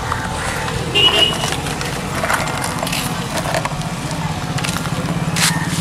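Plastic toy fence pieces clicking and rattling as they slide out of a tipped toy dump truck bed onto sand, with a brief high squeak about a second in. Under it runs a steady low motor hum.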